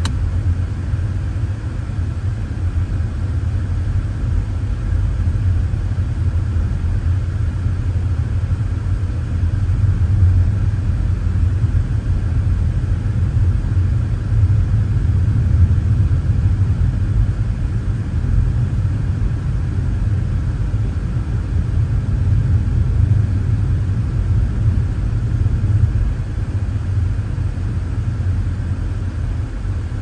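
Car driving, heard from inside the cabin: a steady low rumble of tyres and engine on the road.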